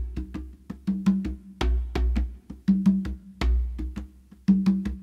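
Background music: a percussive beat of sharp knocks over deep bass thumps, the pattern repeating about every second and three quarters.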